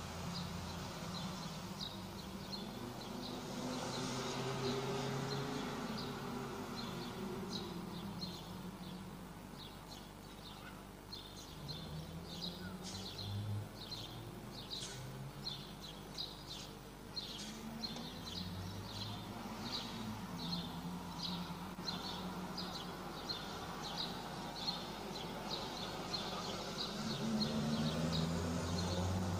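Trombone choir playing a slow chorale from the top of a church tower, heard far off from below as faint held chords that change every second or two and thin out briefly before the middle. Birds chirp rapidly over it, thickening in the second half.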